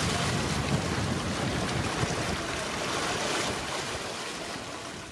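Wind and rough sea rushing past a sailing yacht running before a heavy following swell: a steady noisy rush of wind and breaking water that fades away near the end.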